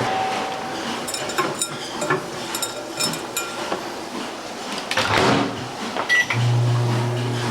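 Microwave oven: scattered clicks and knocks of handling with the hum off, then a short keypad beep about six seconds in and its steady low hum starts up again, warming cheese to soften it.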